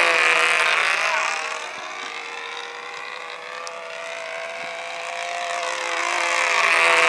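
Small engine of a control-line aerobatic model airplane running steadily in flight. It grows louder as the plane sweeps past close by at the start, fades as it goes round the far side, and swells again near the end.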